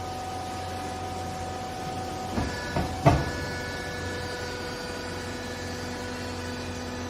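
Hydraulic clothing baler's motor and pump running with a steady whine. Three knocks come about two and a half to three seconds in, the last the loudest, and after them the pitch of the whine shifts as the load on the machine changes.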